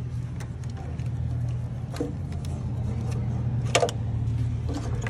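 Old alternator being wiggled out of its mount once its bolts are out: a few short clunks and knocks of the alternator case against the engine's brackets, the loudest a little before four seconds in, over a steady low hum.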